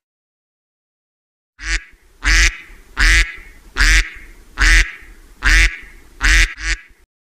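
A duck quacking: a regular series of about eight loud quacks, starting about a second and a half in.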